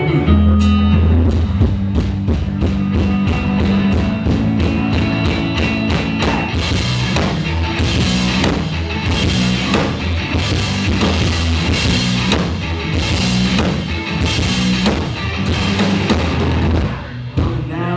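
Live rock music from a guitar-and-drums duo: a heavy, distorted electric guitar riff over a driving drum kit, with crashing cymbals joining about six seconds in. The recording itself is heavily distorted.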